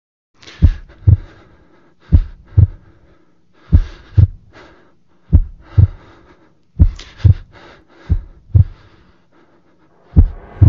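Heartbeat sound effect: deep double thumps (lub-dub), seven beats about one every one and a half seconds.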